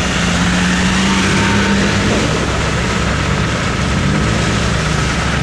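Jeep Grand Cherokee's engine running steadily at low revs, just after a short rev.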